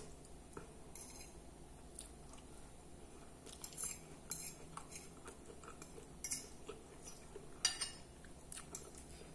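Metal fork scraping and clinking against a glass plate of food, a handful of short strokes spread over several seconds.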